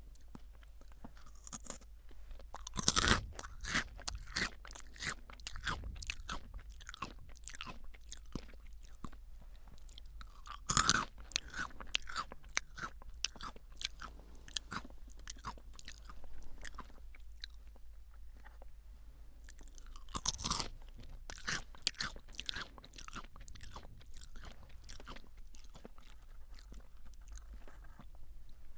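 Crunchy munching of Calbee Jagabee lightly salted potato sticks: three loud bites, about 3, 11 and 20 seconds in, each followed by a run of quick, crackly chewing.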